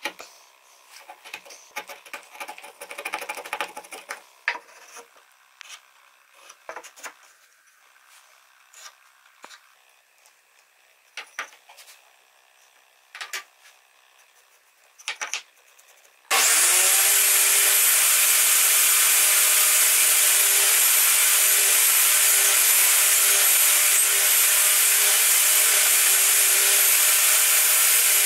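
Faint taps and scrapes from handling a small wooden block and marking it out with a combination square. About halfway through, a table saw switches on and runs steadily, with a constant hum and a high whine.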